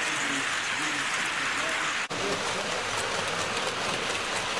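Hornby tinplate model trains clattering round tinplate track, a steady dense rattle of wheels on rails. The sound cuts out for an instant about two seconds in.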